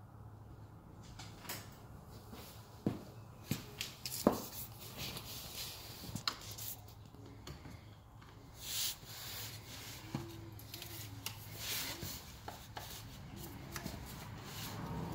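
Screwdriver and hand work on the factory intercooler's charge pipes in a car's engine bay: scattered light clicks, taps and rubbing of metal and plastic parts. A brief rushing sound comes a little past halfway, over a low steady hum.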